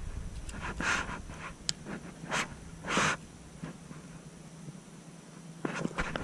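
A person breathing close to the microphone, a few short breaths about a second apart, with a brief cluster of small clicks near the end.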